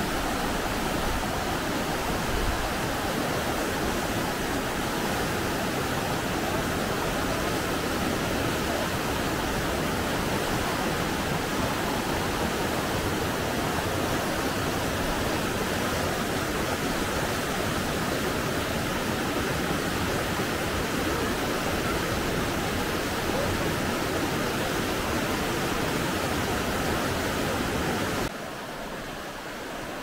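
Fast mountain river rushing over rocks: a steady, dense roar of white water. It drops suddenly to a quieter level near the end.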